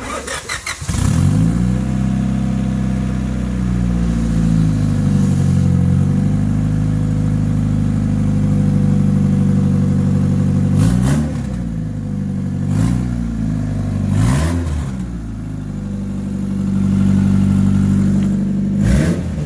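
Turbocharged Honda B-series four-cylinder engine cranking briefly and catching about a second in on its first start, then idling steadily, with a few quick throttle blips in the second half. It runs on an unfinished exhaust.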